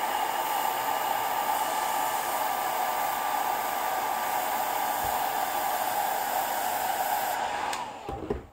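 Handheld hair dryer blowing steadily with an even motor hum, drying fresh airbrush paint on a T-shirt. It cuts off near the end, followed by a few light knocks.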